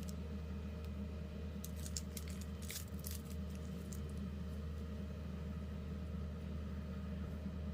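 A steady low hum, with a short run of small metallic clinks and rattles about two to three seconds in, as of tools or small metal parts being handled.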